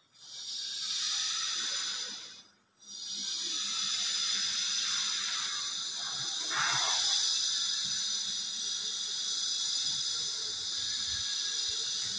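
A steady high-pitched hiss that drops out for a moment about two and a half seconds in and then carries on.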